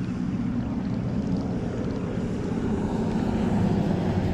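An engine drones steadily in the background, a low, even hum.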